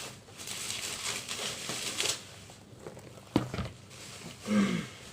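Unboxing packaging being handled: rustling and crinkling for about two seconds, then a sharp knock about three and a half seconds in and a short pitched sound near the end.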